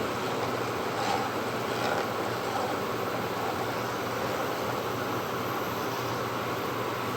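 Steady rushing background noise in a kitchen where a pot of milk is heating on a gas stove, with a faint low hum and a couple of faint light taps about one and two seconds in.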